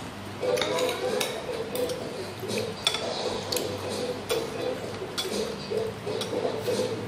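Eating sounds: chewing and mouth sounds, with scattered short clicks and light clinks of ceramic bowls and a plate as fingers pick up sticky rice and dip into the sauce bowl, over a faint steady hum.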